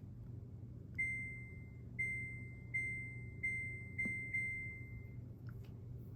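Electronic beeper of a Samsung FlexWash washing machine sounding a run of six high beeps at one pitch, each held until the next, in an uneven rhythm, over a low steady hum.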